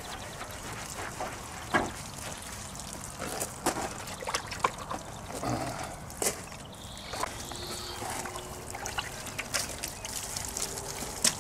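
Water trickling and splashing as a car's painted fender is washed with a soaked sponge, with many small drips and splashes scattered through.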